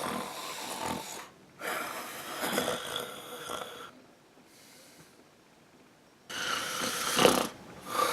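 A person snoring: a run of long, noisy snores, with a quiet stretch of about two seconds midway before the snoring starts again.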